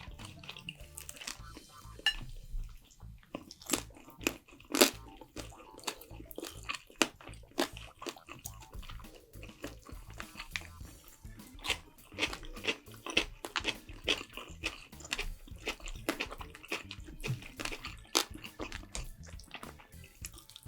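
Close-miked eating: irregular crunching bites and chewing of food, many sharp crunches a second.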